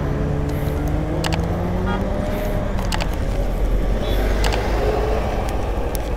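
A motor vehicle's engine running, its pitch rising slightly and then falling back, over a steady low rumble, with a few sharp clicks.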